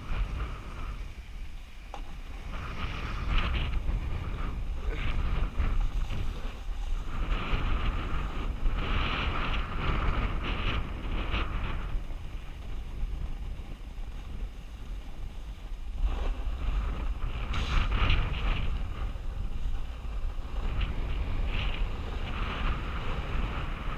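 Wind rushing over a GoPro camera's microphone during a ski descent, with the hiss and scrape of skis on snow coming and going every few seconds with the turns.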